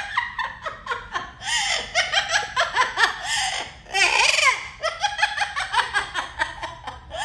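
Yellow-naped Amazon parrot vocalizing: a fast, unbroken run of chattering, laugh-like notes and song fragments that swoop up and down in pitch.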